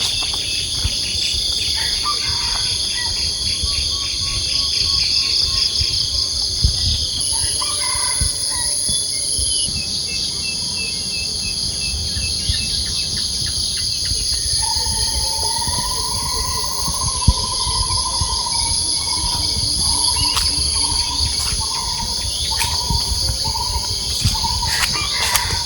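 Tropical forest insects calling steadily in several high, unbroken tones, with birds calling over them: short repeated notes, and a long wavering call a little past halfway. A low rumble runs underneath.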